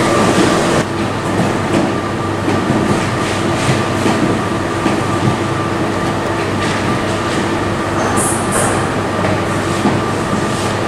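Steady rumble and rattling of a vehicle in motion heard from inside its cabin, with a low steady hum and a higher whine under it. Two brief high hisses come about eight seconds in.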